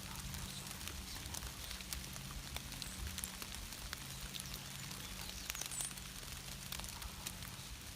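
Light rain in woodland: scattered, irregular drops ticking on leaves over a soft hiss.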